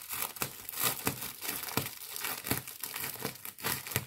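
Plastic film wrapping crinkling and tearing as it is pulled off by hand, in many quick, irregular crackles.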